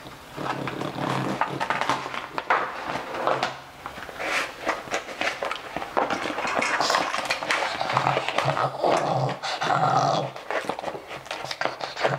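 Pekingese dog growling in long bouts as it is handled and harnessed, a sign of its aggression and fear at being groomed.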